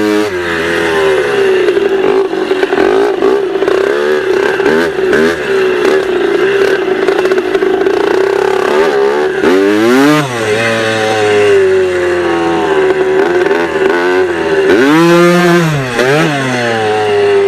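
Dirt bike engine running at high revs, then dropping and climbing in pitch sharply around the middle and again near the end as the throttle is chopped and reopened.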